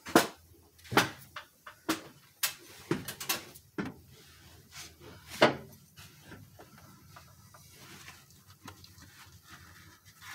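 Metal pushrods clinking and tapping against one another and against the cylinder head as they are handled and set into place in a Jeep 4.0 engine: about a dozen sharp clicks in the first half, then quieter.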